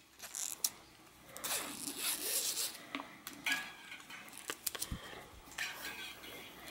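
Steel brake cable being pulled by hand through a Problem Solvers Travel Agent's pulley: several short stretches of faint scraping slide, with small clicks from handling the cable and the unit.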